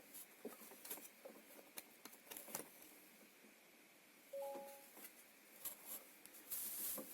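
Quiet handling sounds at a workbench: scattered small clicks and taps, a short electronic beep of two tones together about four and a half seconds in, and a brief rustle near the end.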